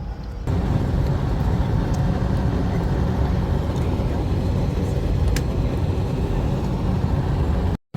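Steady low rumble and hiss of an airliner cabin, engine and air-system noise, which cuts out briefly near the end.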